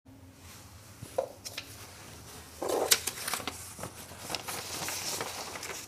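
Handling sounds of a book and papers being moved about: scattered light clicks and rustles, busiest about three seconds in, over a faint steady hum.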